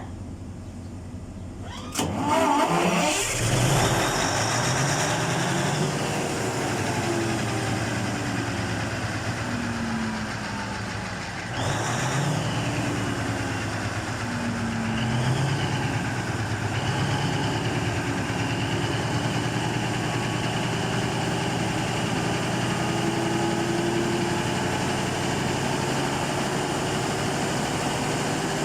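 Cummins KTA50 V16 diesel engine starting on its first test run after a general overhaul: it catches with a loud rise about two seconds in, its speed swings up and down, surges again midway, then settles into steady running with the speed creeping up near the end.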